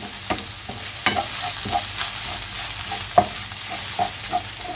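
Onions and ginger-garlic paste sizzling in hot oil in a pan while a spatula stirs them, with scattered scrapes and taps against the pan. One sharper knock comes about three seconds in.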